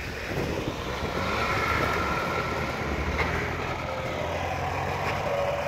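Engines of 4x4 off-road vehicles running steadily as they drive through deep snow.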